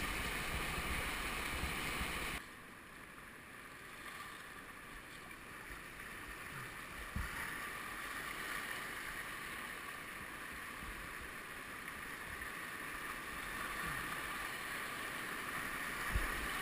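Whitewater rapids rushing and churning around a kayak. The water noise drops abruptly about two seconds in, then slowly grows louder again toward the end.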